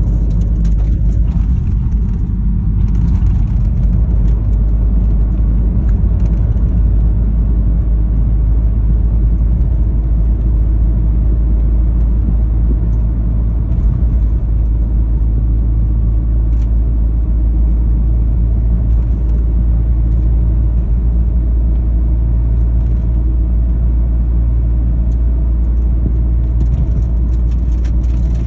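Car on the move with a steady low rumble, over which faint short clicks and knocks come and go at irregular intervals. This is the abnormal noise from the car's aftermarket Largus coilover suspension.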